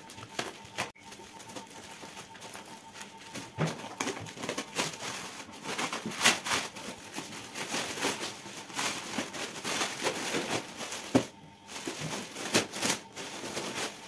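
Plastic shipping wrap being cut with a utility knife and torn open by hand, a long run of crinkling and rustling with many sharp crackles.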